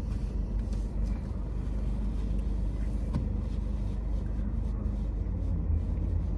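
Steady low rumble of a car's idling engine, heard from inside the cabin.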